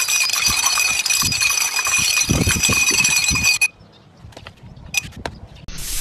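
A long chain of small water-filled glasses toppling like dominoes: a rapid, continuous clinking and clattering of glass on glass with a ringing note, which stops abruptly about three and a half seconds in. A few scattered clicks follow.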